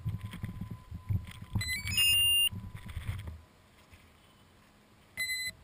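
Gusty low wind rumble on the microphone of a camera lying in grass. Partway through, a quick rising run of high electronic beeps ends in a loud held tone, the loudest sound here. The rumble stops, and near the end there is a single short beep.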